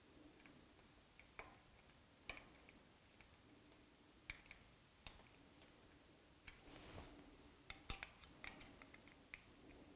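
Faint, scattered metallic clicks and ticks of a hex driver seating and tightening small M4 socket head cap screws that fasten a magnetic scale to a lathe's cross slide, coming more often in the second half over a low room hum.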